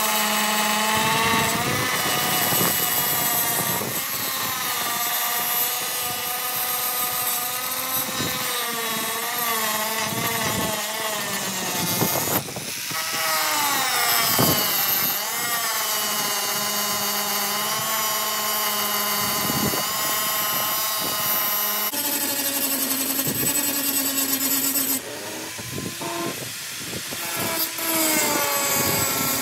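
Angle grinder cutting off steel rivets on a truck cab, its whine dipping and rising as the disc bites and eases off. It breaks off briefly about twelve seconds in, and there is a quieter stretch near the end.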